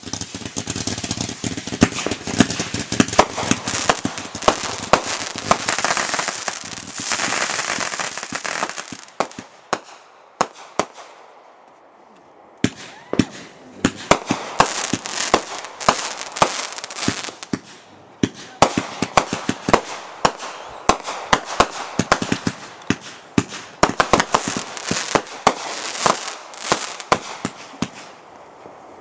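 Consumer firework cakes firing in quick succession: a rapid string of sharp bangs as the shots launch and burst, over a steady hiss. The firing dies away about ten seconds in, and after a short lull another cake starts up and fires rapidly again.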